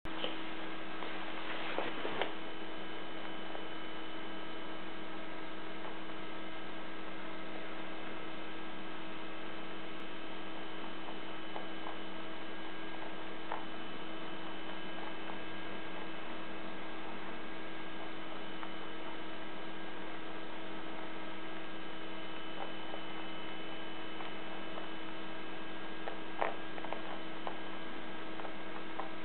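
Steady electrical hum made of several fixed tones, with a few faint clicks at the start and again near the end.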